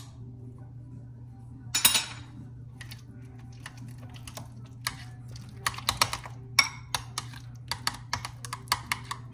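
Metal spoon stirring sour cream in a glass bowl, clicking and scraping against the glass in quick light ticks, with one louder scrape about two seconds in.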